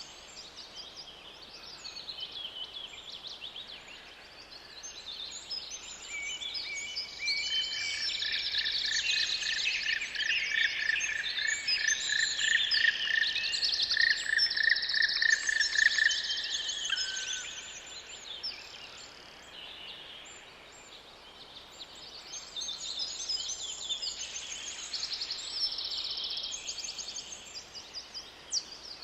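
Several songbirds singing and chirping over one another, with a quick run of repeated notes from one bird through the middle. The chorus is loudest in the middle and thins out for a few seconds after it, then picks up again.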